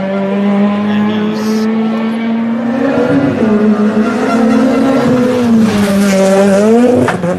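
Race car engine revving hard, holding a steady note and then falling and rising in pitch as it slows and accelerates again. A short sharp noise comes near the end.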